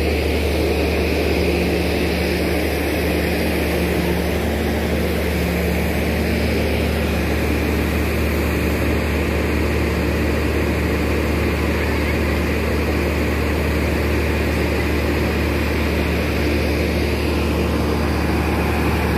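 Steady drone of the diesel generator sets in a stopped passenger train's power car, running to supply the coaches with electricity. It is an even, unchanging hum made of several low tones.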